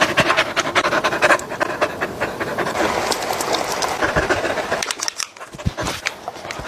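A dog panting quickly, close to the microphone.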